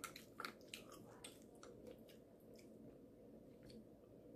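Faint scattered clicks and crackles of snow crab shells being picked apart by hand, with a few sharper cracks in the first second or so.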